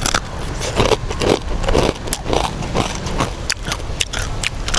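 Close-up chewing of a crispy rice cracker (cơm cháy) coated in sauce, with crunches coming roughly twice a second and small sharp crackles between them.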